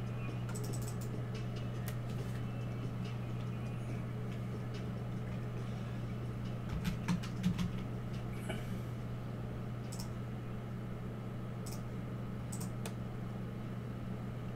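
A steady low electrical hum with sparse light clicks and taps. A few louder knocks come about seven seconds in.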